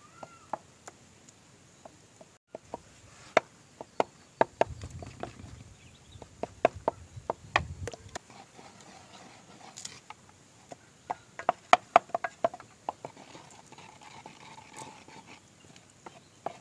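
Wooden pestle pounding a mash of banana and papaya in a clay bowl: irregular sharp knocks of wood striking the clay, with some duller thuds in the middle.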